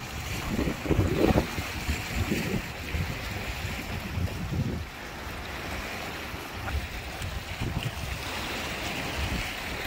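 Wind buffeting the microphone in gusts, strongest about a second in, over small waves washing against rocks on the shore.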